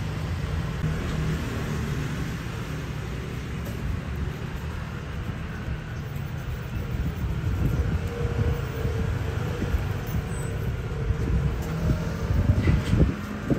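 Steady low rumble of street traffic, with a few knocks near the end.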